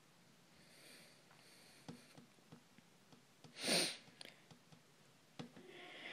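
Quiet room with a few faint ticks, and one short, breathy rush of air from a person about three and a half seconds in, the loudest sound.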